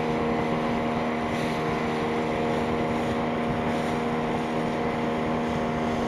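Outboard motor running at a steady speed, pushing an inflatable boat along, with water splashing and rushing along the hull.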